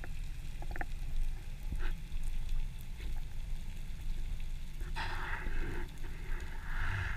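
Underwater ambience picked up by a diving camera: a steady low rumble of water against the housing with scattered faint clicks and crackles, and a brief rushing hiss about five seconds in, with another near the end.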